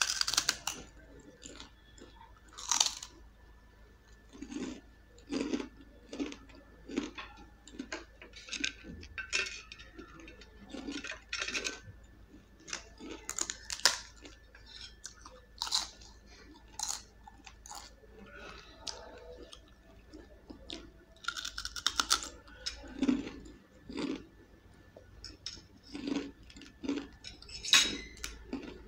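Crisp fried papads, puffed sabudana papad and aloo papad, crunching as they are bitten and chewed, in irregular sharp crunches with quieter chewing between them.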